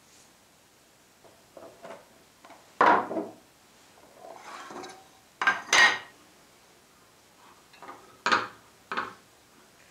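Metal tin clanking and scraping on a wooden workbench as its lid is pried off and set down: a handful of sharp metallic knocks with scraping between them. Near the end, a knife blade knocks and scrapes against the tin as wax is scooped out.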